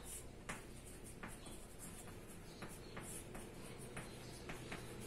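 Chalk writing on a blackboard: faint, quick taps and short scratches, about two or three a second.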